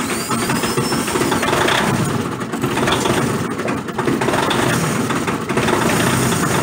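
A 1999 New Holland TC29 compact tractor's three-cylinder diesel engine running steadily just after a glow-plug cold start.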